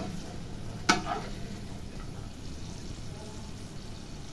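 Hot oil sizzling faintly in a kadhai while fried almonds are scooped out with a perforated steel skimmer, with one sharp knock of the skimmer against the pan about a second in.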